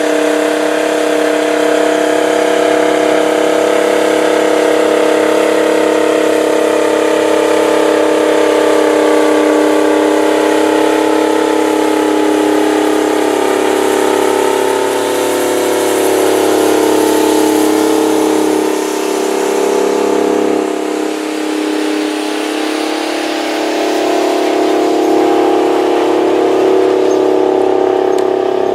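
Big four-wheel-drive tractor diesel engines running steadily under heavy load, pulling a 20-bottom moldboard plow; a deep, even drone whose pitch wavers a little a few seconds past the middle.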